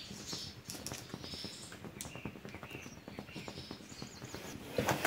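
Faint outdoor ambience with small birds chirping, and scattered light ticks. A loud metallic clatter begins right at the end.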